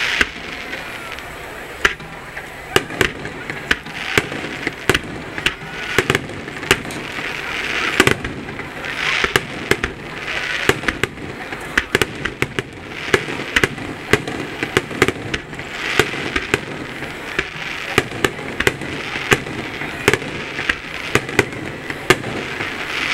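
Aerial firework shells bursting in an irregular barrage: dozens of sharp bangs, often several a second, over a steady hiss that swells now and then.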